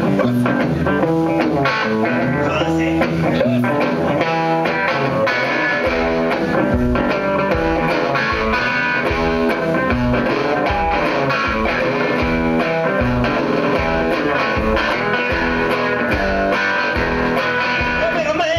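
Electric guitar played solo through an amplifier, a blues intro with no singing. About six seconds in, a steady low thump joins, about twice a second, keeping the beat.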